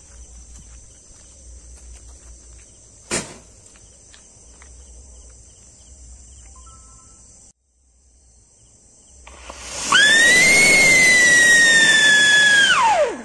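Siren firecracker going off: a loud hissing spray of sparks with a shrill whistle that rises quickly, holds for about three seconds while sagging slightly in pitch, then swoops steeply down and cuts off near the end. Earlier, the lit tube sputters faintly, with one sharp pop about three seconds in.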